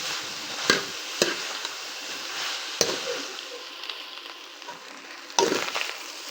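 Okra and minced meat sizzling in hot oil in a pan, a steady hiss, with a stirring utensil knocking and scraping against the pan a few times and a louder run of strokes near the end. The okra is being fried to drive off its sliminess.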